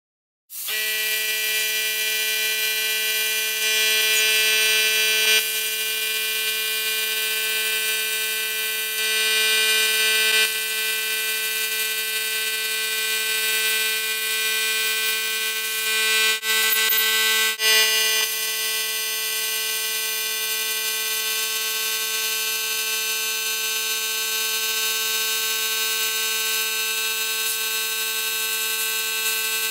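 Plasma cutter running: a steady high buzzing whine with a hiss that swells louder several times, around four seconds in, about nine seconds in and again around sixteen to eighteen seconds in.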